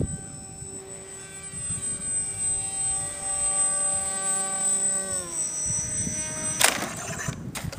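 Brushless electric motor and propeller of a homemade RC delta-wing plane whining steadily in flight, then sliding down in pitch as the motor slows about five seconds in. A short burst of noise follows near the end.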